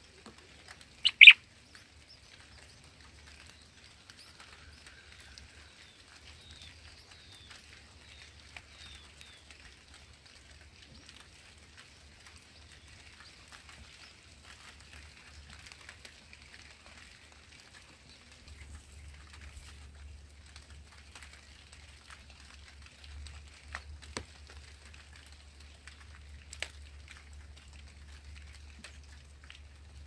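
A single loud, sharp bird chirp about a second in. Faint, scattered short chirps follow, with a couple of soft clicks, over a low background hum.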